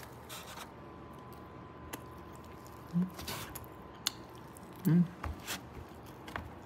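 A person chewing a mouthful of food with the mouth closed, with small scattered clicks. Two short hummed "mmm"s come about three and five seconds in.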